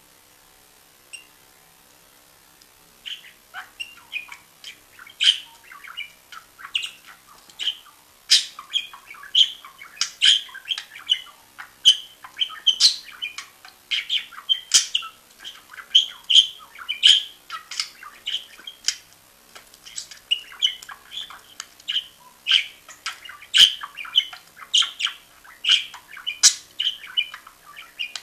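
Budgerigar warbling: a fast, unbroken run of chirps, clicks and squeaky notes that starts about three seconds in. This is the warble a budgie gives during a mating display, here while it rubs against a hand.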